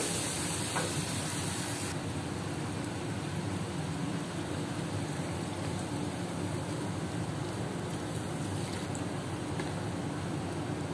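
Chicken pieces in sweet soy sauce in a wok, sizzling and then simmering as a metal spatula stirs them. The sharp sizzle falls away about two seconds in and gives way to a quieter bubbling, over a steady low rumble.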